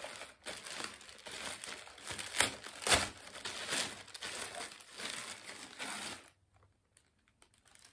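Plastic courier mailer bag crinkling and rustling as it is handled and pulled open, with a few sharp, louder crackles. The rustling stops about six seconds in.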